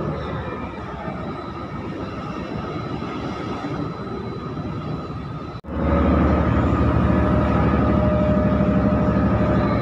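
Diesel engines of heavy port container-handling machinery running, a reach stacker moving across the yard. A sudden cut a little over halfway in brings a louder, closer engine with a steady hum and a thin higher whine while a container is handled beside the trailer.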